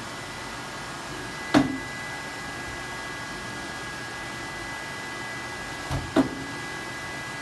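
Steady cooling-fan noise with a thin high whine from the running Eaton 9E UPS, broken by two sharp knocks, about a second and a half in and again about six seconds in, as the metal battery-module cabinet is bumped and pushed into place.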